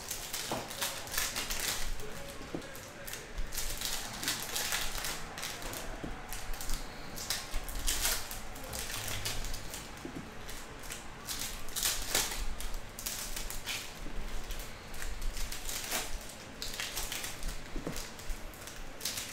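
Foil trading-card pack wrappers being torn open and crinkled, and stiff cards slid and tapped against each other, in a run of short crackling rustles.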